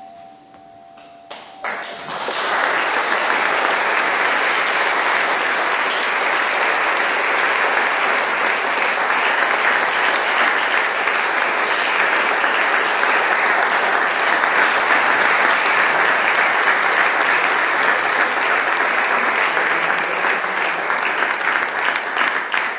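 The last ringing tones of a crystal singing bowl stop about a second and a half in. A few first claps follow, and then the audience breaks into loud, steady applause.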